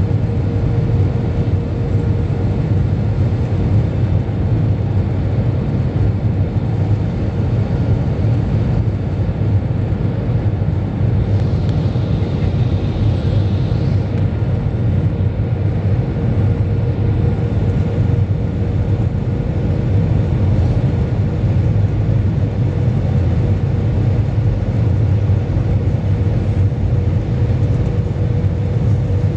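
Airbus A320 cabin noise: a steady low rumble of the engines and airflow, with a constant hum running through it.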